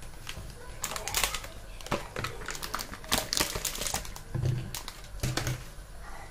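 Thin clear plastic food tray crinkling and clicking in a run of bursts as dumplings are pulled out of it and set into a bamboo steamer basket, starting about a second in and easing off near the end.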